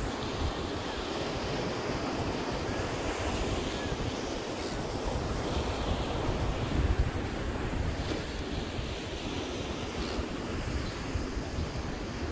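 Surf washing onto a sandy beach, with wind buffeting the microphone in low gusts; the sound swells to its loudest about seven seconds in.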